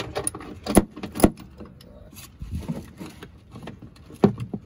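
Irregular metallic clicks and clanks of a 3/8-drive ratchet and 17 mm deep socket working a UTV's factory seat-belt mounting bolt loose, with two sharp knocks about a second in and another near the end.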